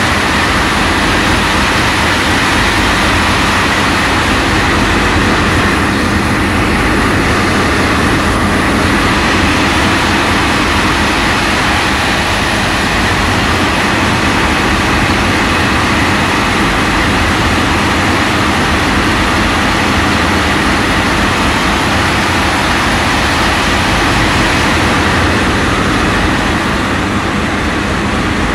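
A boat's engine running steadily underway: a constant drone with a few steady hum tones and a rushing wash of wind and water over it.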